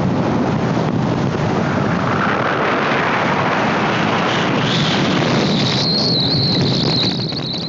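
Wind rushing over the microphone with road noise from a moving motorcycle. About six seconds in, a high, steady whine joins.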